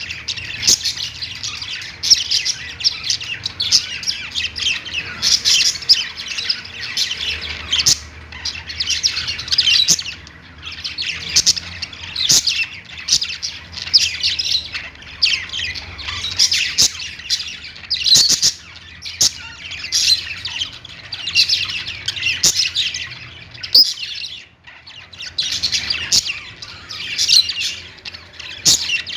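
Budgerigars warbling and chirping in busy bursts a second or two long, with short pauses between.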